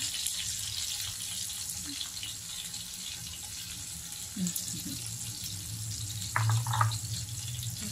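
Pork belly sizzling in a stovetop grill pan: a steady hiss of frying fat, with a short louder bump about six and a half seconds in.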